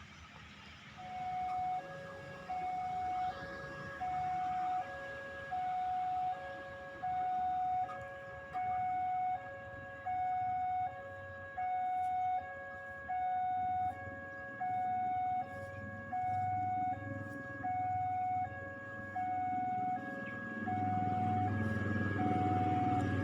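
Railway level-crossing alarm sounding an electronic two-tone signal, high and low tones alternating about every three-quarters of a second, warning of an approaching train. It starts about a second in, and a low rumble grows near the end.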